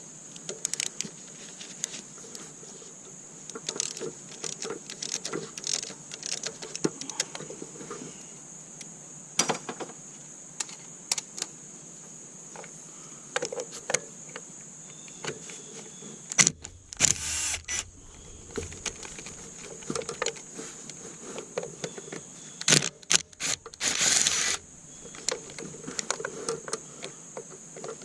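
Hand tools and metal bolts clicking and clinking during valve cover removal on a 3.5L V6, with a few short rasping bursts about halfway through and again near the end.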